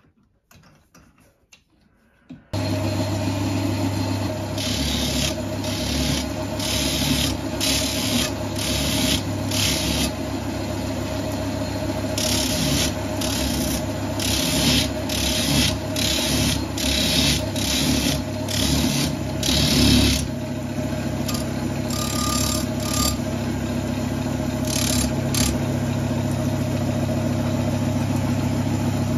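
Wood lathe motor switching on abruptly about two and a half seconds in and then running steadily, spinning an abrasive wheel in its chuck. A steel axe head is pressed against the wheel in repeated strokes, each a short grinding rasp, about once a second for much of the middle, with a few more near the end. Before the motor starts there are only faint clicks of handling the chuck.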